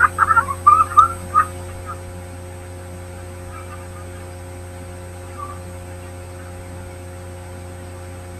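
A brief burst of loud shouts and knocks in the first two seconds, then a steady electrical hum made of several tones.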